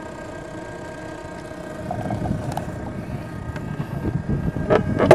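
Handling noise from the onboard camera of a model airplane: rubbing and rumbling as a hand grips it, with two sharp knocks near the end, over a steady faint whine.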